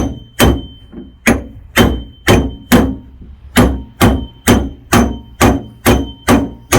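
A hammer tapping a dent in a 2008 Chevy Impala's sheet-metal trunk lid up from the underside: a steady run of about fifteen sharp strikes, roughly two a second, each leaving a short metallic ring, with a brief pause about halfway through.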